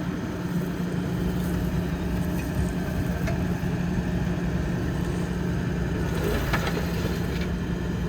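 Tractor engine running steadily at an even speed with a low, rough rumble.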